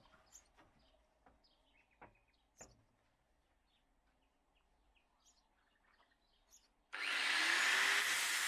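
Faint scattered clicks and bird chirps, then about seven seconds in a power tool starts abruptly and runs with a loud, even rushing noise.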